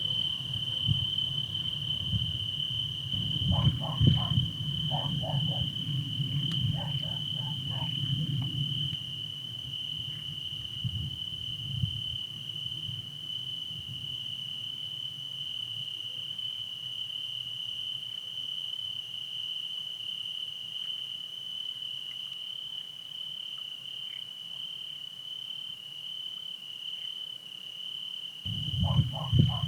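Crickets chirping in a steady, high-pitched chorus at night, with frogs calling over it in short pulsed series during the first nine seconds or so. Near the end the frogs start up again.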